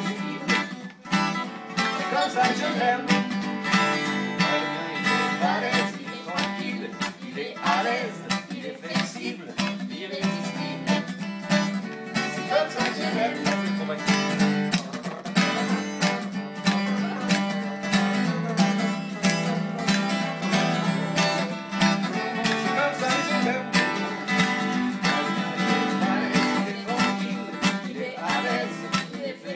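Acoustic guitar playing an instrumental passage of steadily picked and strummed notes.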